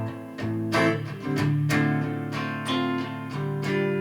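Acoustic guitar playing chords, struck about every half second, with the last chord near the end left ringing.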